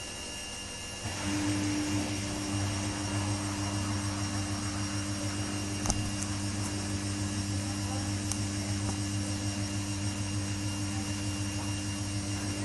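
Samsung WW80J5555FWEU front-loading washing machine running a 40°C wash. About a second in its drum motor starts and runs at a steady speed, a steady whine over a low hum. There is a single sharp click about six seconds in.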